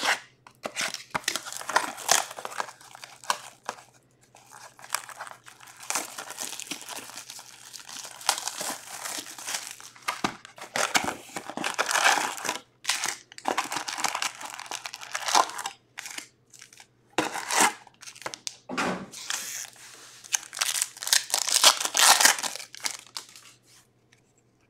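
Hockey card retail pack wrappers being torn open and crumpled, in irregular bursts of crinkling and ripping with short pauses.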